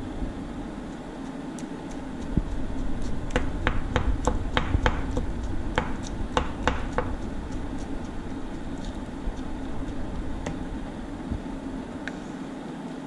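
A metal spoon clinking against a cooking pot while stirring: a run of about ten sharp, ringing taps over a few seconds in the middle, over a steady low background noise.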